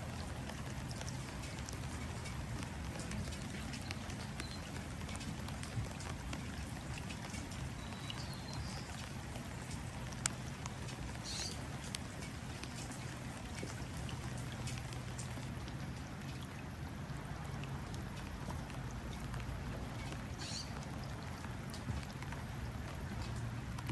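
Steady rain pattering on water, with many small drip ticks. A bird chirps briefly a few times.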